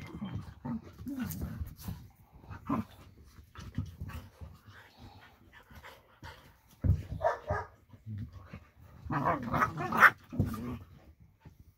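A large dog and a puppy play-wrestling, with short bursts of barks and growls. The loudest bursts come about seven seconds in and again about nine to ten seconds in.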